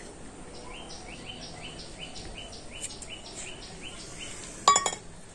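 Stainless steel bowls clinking once near the end with a bright metallic ring, the loudest sound. Before it, a bird chirps rapidly in the background, about three short calls a second.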